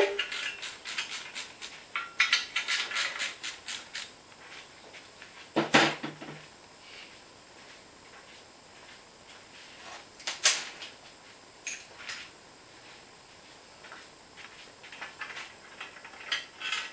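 Hand ratchet clicking in short runs, with metal tools and parts clinking, as bolts are undone on an LS V8's cast exhaust manifold. One louder metal clunk comes about six seconds in, followed by scattered single clinks.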